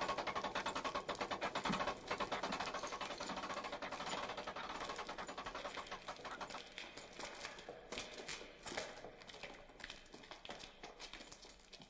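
Castle portcullis being raised: a fast, dense mechanical rattle that grows fainter over the second half.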